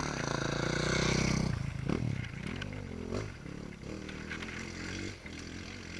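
Motocross bike engines: one runs loud and close during the first second and a half, then others rev up and down, their pitch rising and falling with the throttle.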